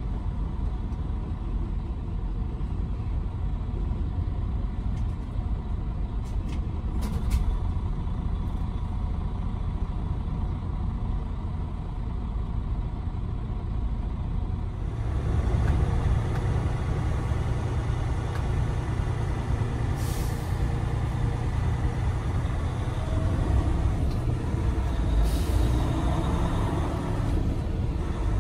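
Steady low rumble of a semi-truck's engine and road noise heard from inside the cab while driving. About halfway through, the rumble grows fuller and a little louder, and two brief faint hisses come later.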